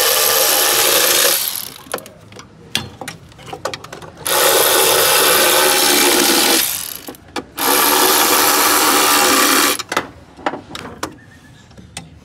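Impact wrench hammering in three bursts of about two seconds each, undoing the water pump pulley bolts, with light metal clicks of tools and parts between the bursts.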